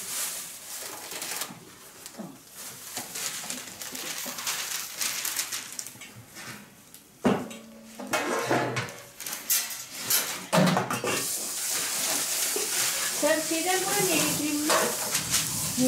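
Kitchen clatter of dishes, pots and utensils being handled, with a few sharp knocks about halfway through. A steady hiss comes in after about eleven seconds.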